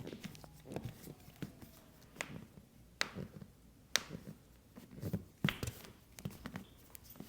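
A run of small clicks and soft taps from hands working a patient's foot and ankle on a chiropractic table, the two sharpest clicks about three and four seconds in.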